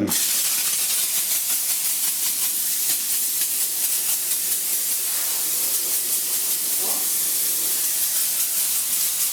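Kärcher SC3 steam cleaner jetting steam through its nozzle attachment: a loud, steady hiss.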